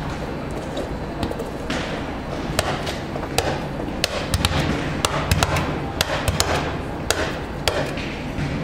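Volleyballs being hit and bounced: a string of irregular sharp smacks and thuds, thickest in the second half, over the steady hubbub of a large hall.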